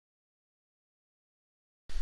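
Silence, broken right at the end by a sudden low hum with hiss.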